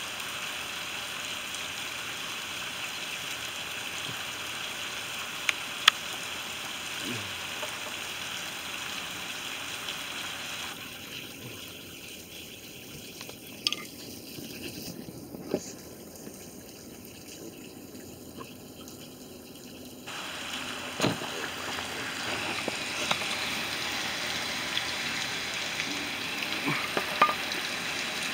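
Heavy rain falling steadily, an even hiss, with a few sharp drip-like taps. It drops to a softer level for about ten seconds in the middle, then comes back up.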